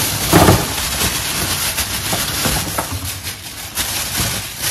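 A thin plastic freezer bag rustling and crinkling as coated sweet potato wedges are tipped out of it onto a baking tray, with a few soft knocks of wedges landing. The loudest burst of rustling comes about half a second in.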